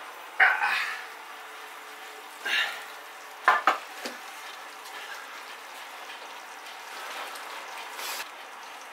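A hot metal roasting tray just out of the oven, fat and juices sizzling in it steadily, with a few clunks and scrapes of the tray being handled and set down on a granite board, the loudest about half a second in and about three and a half seconds in.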